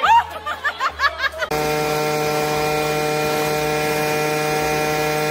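A few short high squeaks, then a leaf blower cuts in about a second and a half in and runs steadily at one even pitch.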